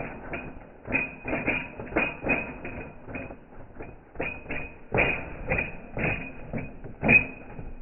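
Handling noise: a cardboard box knocking and scraping close to the microphone, in uneven clatters several times a second, with a sharper knock about five seconds in and another near the end.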